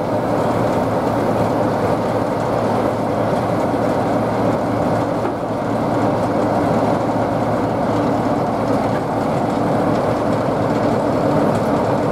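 Class 47 diesel-electric locomotive's Sulzer twelve-cylinder engine idling steadily while standing at the platform.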